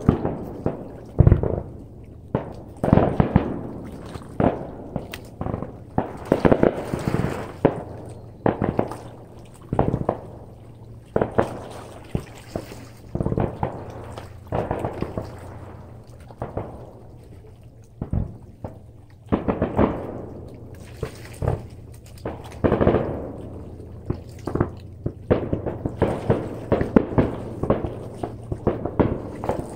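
Fireworks display: a continuous run of sharp bangs from bursting shells, several close together at times, each trailing off in crackle and rumble.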